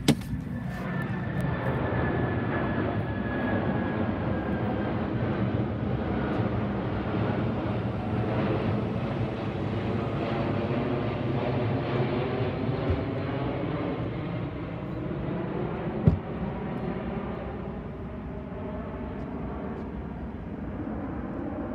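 Jet airliner flying low overhead: steady engine noise with a high whine that falls slowly in pitch, easing off over the last few seconds. A sharp knock sounds right at the start and another about sixteen seconds in.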